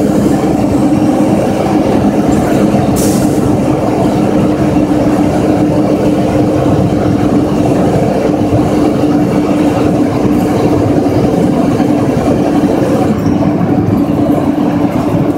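Mack truck's diesel engine and road noise heard from inside the cab at highway cruising speed: a loud, steady drone with a constant hum, and a brief hiss about three seconds in.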